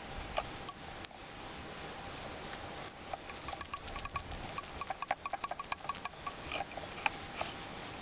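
Ratchet wrench with a 10 mm socket clicking in quick runs of sharp ticks as a nut holding the purge valve solenoid is backed off. The clicks are sparse at first and densest around the middle.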